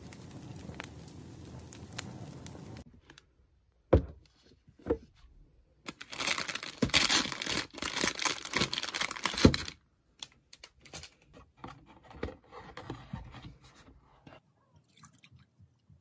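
A crackling firewood ambience for the first few seconds, then cut off. After two sharp knocks, a clear plastic bag crinkles loudly for a few seconds as an egg tart is pulled out of it on a plate, followed by lighter rustles and ticks.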